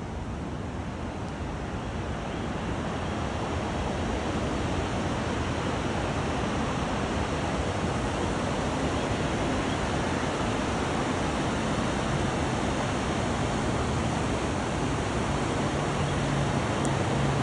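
Steady rushing of whitewater rapids on the Chattahoochee River, growing louder over the first few seconds and then holding even.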